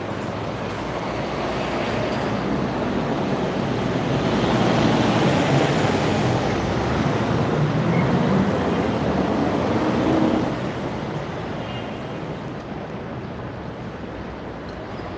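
City street traffic with a truck passing close by: the engine and road noise build over a few seconds, stay loudest through the middle, then drop off about ten seconds in.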